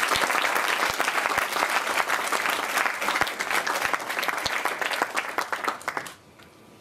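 Audience applauding, a dense clatter of many hands clapping that stops about six seconds in.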